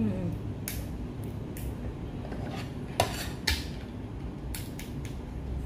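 A spoon and cutlery clinking and scraping against plates during a meal: scattered sharp clicks and taps, the loudest about three seconds in.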